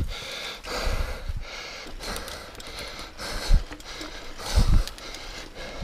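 A man breathing hard in heavy, repeated breaths, winded from a steep uphill mountain-bike climb, with a few short low thumps on the microphone.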